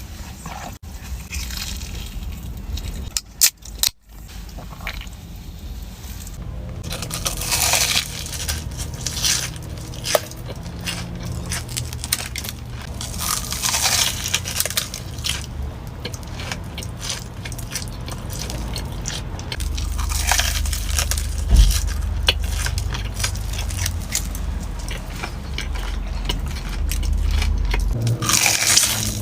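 Close-miked eating of a fried, sugar-coated Korean corn dog: several crunchy bites through the crust, about every six seconds, with crackling chewing in between.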